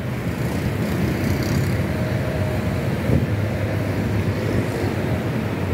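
Steady rushing hum of a large pedestal fan blowing air across a smoking kebab grill.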